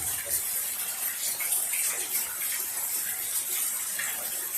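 Heavy rain falling steadily: an even hiss with scattered drips and splashes.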